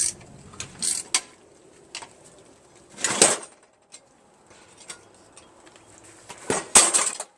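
A 13 mm wrench working a metal seat-mounting nut loose: a few sharp metallic clicks and clinks, with two short rasping bursts about three seconds in and near the end.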